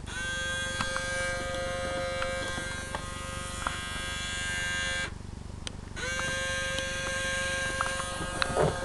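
Small electric motor inside an RCA CMR300 VHS camcorder whirring with a steady buzzing pitch, in two runs of about five and three seconds with a short stop between them, each settling quickly onto its pitch. The mechanism runs but the stuck tape does not eject, which the owner puts down to a broken belt.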